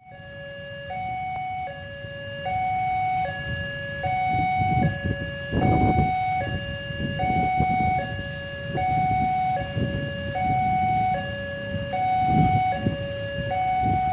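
An electronic two-tone warning alarm alternating evenly between a lower and a higher tone, each held just under a second, over the low rumble and clicks of a train of passenger coaches rolling past on the tracks.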